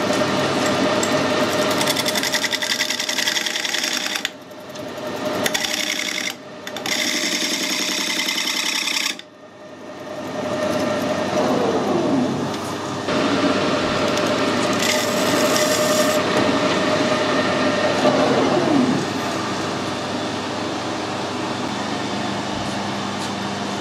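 Harrison 140 metal lathe running and cutting a metal part: a steady gear whine with the noise of the cut, broken off briefly three times. Near the end the pitch falls as the spindle runs down, leaving a quieter steady hum.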